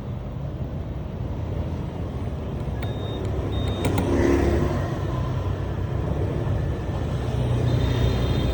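Car engine running with a steady low rumble. A few clicks and two short high beeps come about three to four seconds in.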